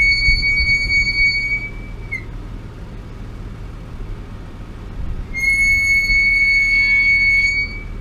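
2012 Nissan Pathfinder's disc brakes squealing as the vehicle slows: a steady, high-pitched squeal that stops about two seconds in and comes back about five seconds in, over low road and tyre noise. This is the light brake squeal heard when slowing down, before any anti-squeal lubricant is applied.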